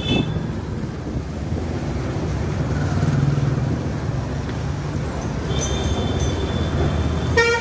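Steady low rumble of a two-wheeler riding in slow street traffic, engine and road noise with wind on the microphone. A high-pitched horn sounds briefly about five and a half seconds in, and a short horn toot comes near the end.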